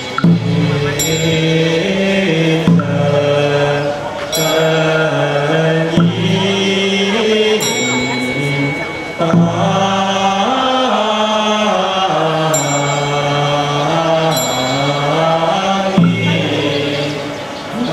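Buddhist liturgical chanting, a slow sustained melodic chant sung through a microphone and PA, with a ritual bell struck every couple of seconds, ringing on under the voice.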